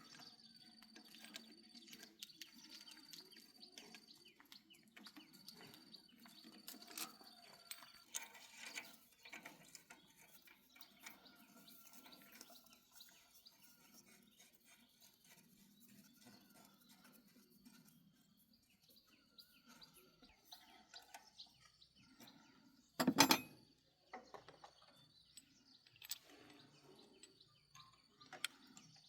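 Birds chirping over a quiet background, with scattered light clicks and taps. One short, loud knock comes about three-quarters of the way through.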